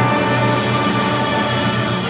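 A high school wind ensemble playing loudly as a full band, woodwinds and brass together holding sustained notes.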